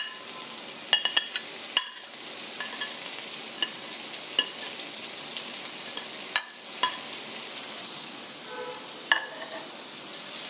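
Sliced onions sizzling in hot oil in an iron wok over a high flame, with a spatula stirring and clinking against the pan in short sharp clicks every second or so. The sizzle grows louder near the end.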